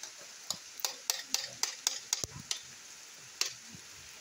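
Metal spoon stirring pak choy and baked beans in a metal pan, clinking and scraping against it in a quick run of strokes, then once more near the end, over a steady sizzle from the pan on the fire.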